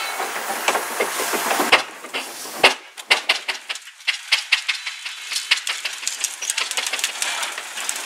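Dry branches and brushwood cracking and snapping in many sharp, irregular cracks, after a steady rushing noise over the first couple of seconds.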